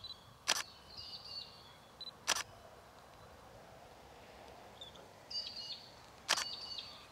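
A camera shutter fires three times: about half a second in, a little after two seconds, and about six seconds in. Birds chirp between the shots.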